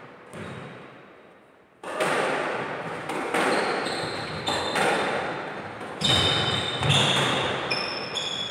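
Squash rally: the ball cracks off the rackets and the court walls about once a second, each hit echoing round the enclosed court, with court shoes squeaking on the wooden floor. The first hit, the serve, comes about two seconds in.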